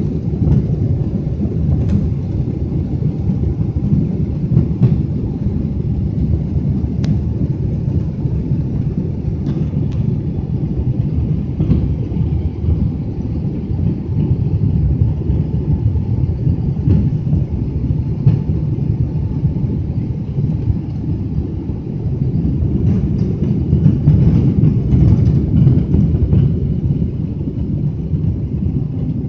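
Cabin noise of a Boeing 777 on its takeoff roll: a loud, steady, deep rumble from the jet engines at takeoff power and the wheels running on the runway. A few faint clicks and rattles come through it.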